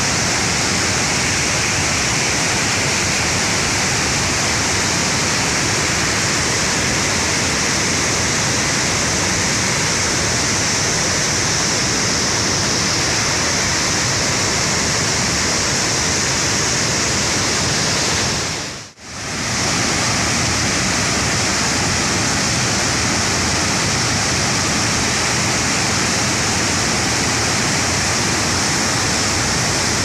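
Loud, steady rush of a waterfall in full flow, white water pouring over stepped rock ledges into a churning, foaming plunge pool. About two-thirds of the way in, the sound dips out briefly and comes straight back.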